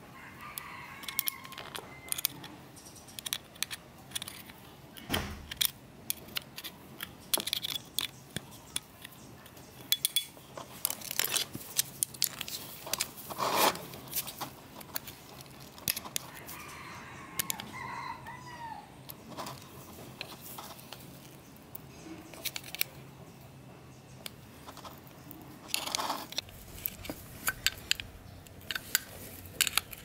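A steel screwdriver scraping and clicking against the metal end housing of an old table-fan motor around its bearing seat, in irregular sharp ticks and scrapes. A rooster crows in the background twice, near the start and again about halfway through.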